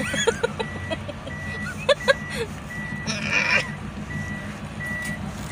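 A vehicle's electronic warning beep repeating steadily about every three quarters of a second inside the van's cabin, over the low hum of the moving van, with short bursts of a woman's laughter near the start and about two seconds in.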